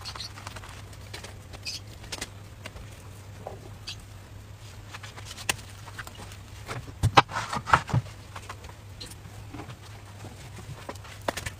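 Light taps and clicks from handling a small electric crepe maker and peeling off thin crepes, with a louder cluster of knocks about seven to eight seconds in, over a steady low hum.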